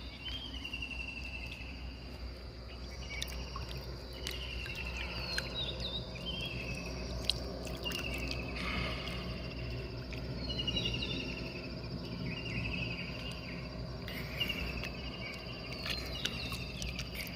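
Outdoor natural ambience of insects calling: short pulsed trills repeating every second or two over a steady high drone, with a few short chirps. A low rumble runs underneath, and there is a brief rush of noise about nine seconds in.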